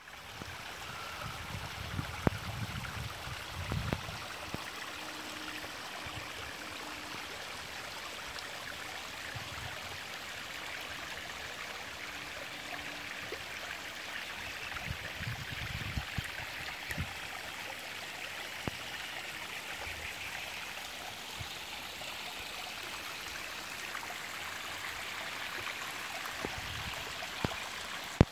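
Shallow water flowing steadily through stone-lined channels, a constant rushing trickle, with a few low bumps and clicks scattered through it.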